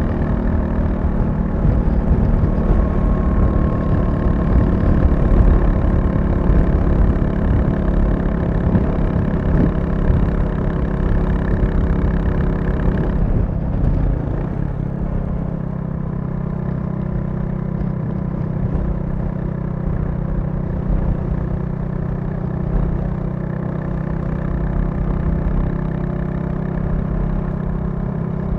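Royal Enfield Classic 350's single-cylinder engine running under way. About halfway through its pitch drops as it slows, and it then settles into a lower, steadier, slightly quieter note.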